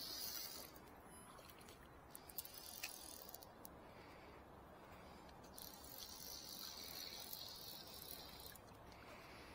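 Fly reel's clicker drag buzzing as a hooked redband trout pulls line, in a short burst at the start and a longer run of about three seconds near the end, with a few clicks in between over a faint river wash.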